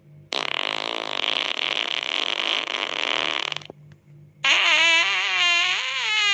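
A long, noisy fart sound effect lasting about three seconds and stopping abruptly. After a short gap, a loud pitched sound effect starts that wavers and bends up and down in pitch.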